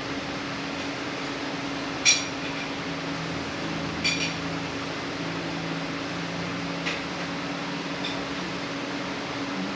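Metal transmission parts clinking with a short ring, twice and then once more lightly, over a steady shop hum.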